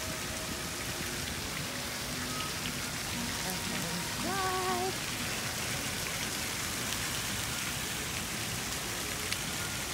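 Steady hiss of falling and splashing water. A brief voice sounds about four seconds in.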